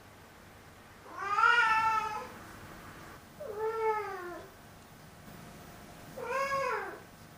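Domestic cat meowing three times, each call a drawn-out meow that rises then falls in pitch; the first is the loudest and longest. The owner hears these meows as complaining and grumbling.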